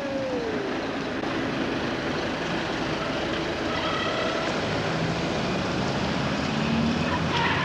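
Heavy-haulage truck and low-loader trailer carrying a catamaran driving past: a steady engine and tyre rumble, with the engine note growing louder near the end.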